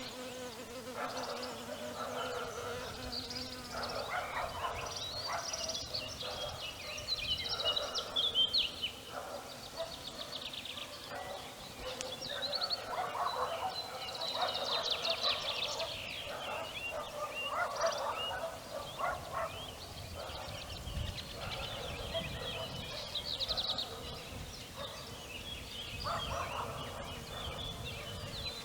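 Spring village ambience: many birds chirping and trilling on top of one another, with lower, throatier calls coming in repeated bursts.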